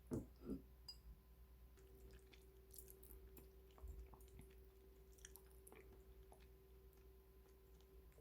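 Faint eating sounds: soft chewing with small scattered clicks, and two louder soft sounds in the first half second.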